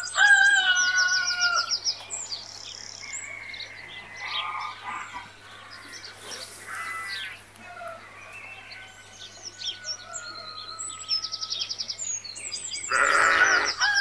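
Farmyard sound bed: small birds chirping and trilling throughout, with chickens calling. A louder held fowl call comes right at the start, and a loud, harsher call comes near the end.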